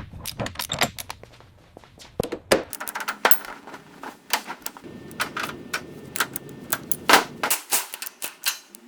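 A run of irregular sharp clicks, taps and knocks at uneven spacing, some louder than others, the loudest a little after seven seconds in.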